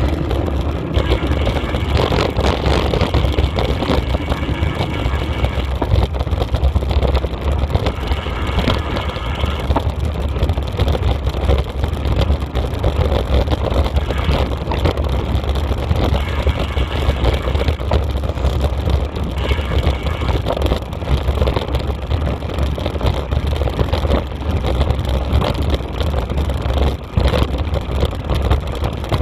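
Wind buffeting and rumbling on a camera microphone, with the rattle and crunch of tyres riding fast over a gravel forest track and trail. A thin high whine comes and goes several times.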